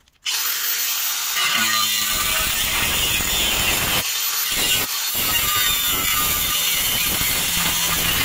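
Makita DGA504Z 18 V brushless cordless angle grinder cutting through 3 mm steel plate with a 125 mm cut-off disc: a loud, steady grinding hiss that starts abruptly and dips briefly twice about four and five seconds in.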